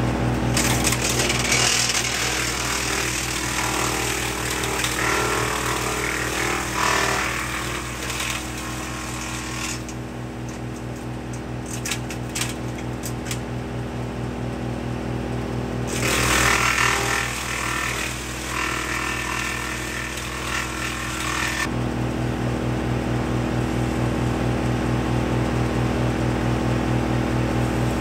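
Woodmaxx MX-8800 PTO wood chipper driven by a John Deere 2032R's 32 hp diesel, running steadily. There are two long stretches of loud shredding as branches and foliage are fed through, from just after the start to about eight seconds in and again from about sixteen to twenty-one seconds in, with a few sharp cracks in between.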